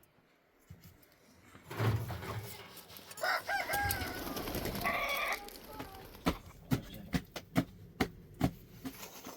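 A rooster crows once, starting about three seconds in. It is followed by a quick series of sharp knocks in the second half.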